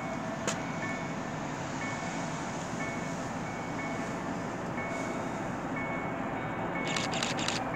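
Steady rumble of an approaching freight train with diesel locomotives, still out of sight, with a short high beep repeating about once a second. A few crackles near the end.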